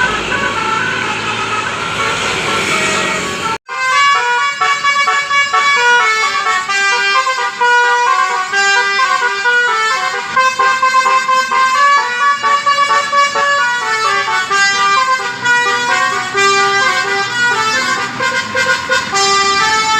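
Basuri telolet bus horn with roof-mounted trumpets playing a quick tune of several tones changing note rapidly. It cuts out for an instant about three and a half seconds in, then another run of fast-changing horn notes plays.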